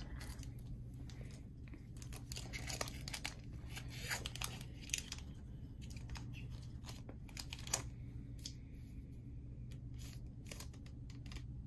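Foil wrapper of a Pokémon trading card booster pack being torn and crinkled by hand, with scattered short crackles and rustles as the cut strip is peeled off and the pack is opened.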